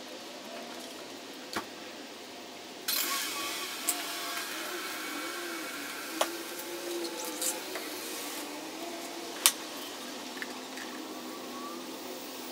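Steady workshop hiss that gets louder about three seconds in, with a few sharp clicks and taps from objects being handled on a workbench; the sharpest click comes about three-quarters of the way through.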